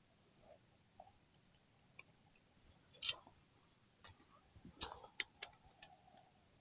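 Scattered light metallic clicks and ticks from a hex key and the titanium clutch-cover bolts being loosened and handled. There is a brief scrape about three seconds in, a sharp ringing clink about a second later, then a quick run of clicks.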